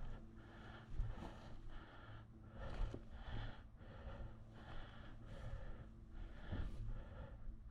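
A person's quick, heavy breathing close to the microphone, a breath roughly every two-thirds of a second, with a few dull thumps.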